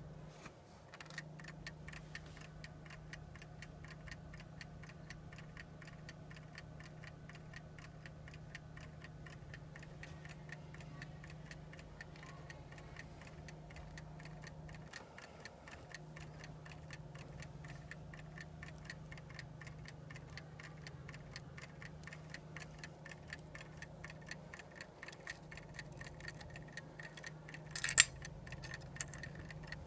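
Frog clock ticking evenly and continuously, with one louder sharp knock near the end.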